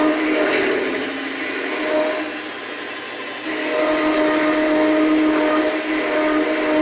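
Metal lathe parting tool cutting through a turning metal bar, giving a steady high-pitched squeal over the hiss of the cut. The squeal eases about two seconds in and comes back stronger about a second and a half later.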